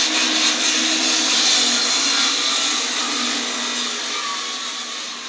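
Electric power saw cutting through a heavy, knotty ash log, its motor running loud and steady and then winding down over the last couple of seconds. The saw keeps shutting down because it is overheating.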